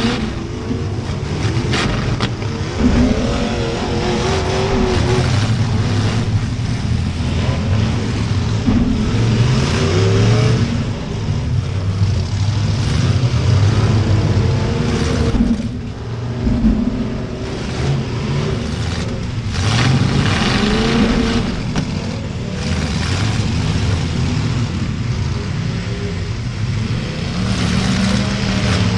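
Several V8 demolition derby cars revving hard, their engines rising and falling in pitch over and over, with occasional sharp bangs of cars colliding.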